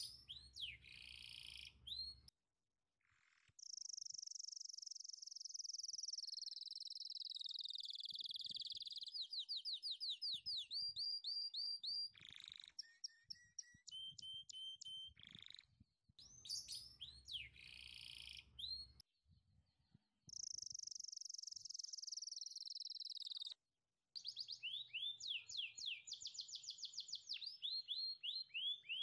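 Birdsong: long whistled notes sliding slowly downward, alternating with fast trills of repeated chirps, in several phrases broken by short pauses.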